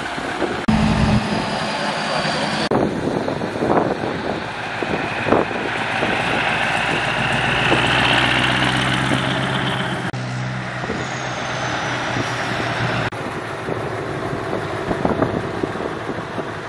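Scania V8 truck engines running as trucks drive past one after another, with a rising whine in the middle. The sound changes abruptly several times as one truck's pass cuts to the next.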